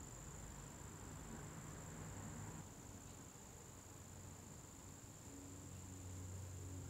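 Faint, steady high-pitched trill of crickets, with a low hum underneath.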